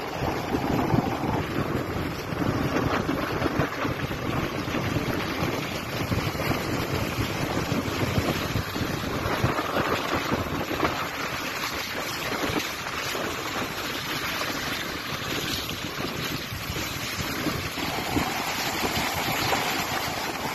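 Sea waves washing along a beach, a steady rushing wash, with wind buffeting the microphone.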